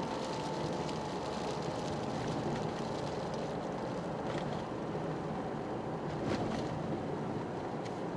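Toyota GR Yaris driving at a steady pace: its turbocharged 1.6-litre three-cylinder engine hums under a steady rush of studless tyre and road noise on wet, partly melted snow. A few faint clicks come through along the way.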